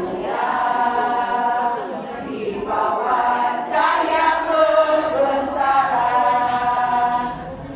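Women's choir singing together, in long held notes grouped into phrases with short breaks between them.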